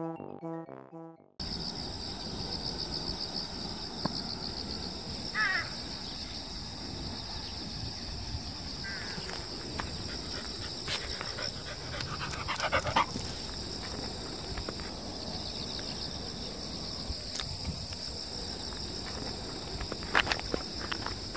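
Short intro music stops about a second in. It gives way to a rural summer ambience of insects chirring in a steady high drone. A few short calls rise above the drone three times.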